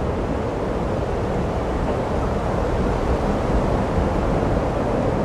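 A steady low rumbling noise with no distinct tones or strokes.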